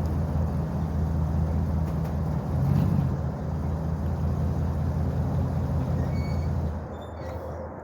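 A motor vehicle engine running steadily with a low hum, which drops away suddenly near the end.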